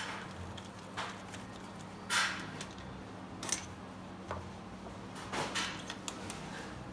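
Hand tools and metal fittings being handled on the cylinder head of a diesel engine during a compression test: scattered light clicks and clatters, as the compression tester is moved on to the next cylinder, over a faint steady hum.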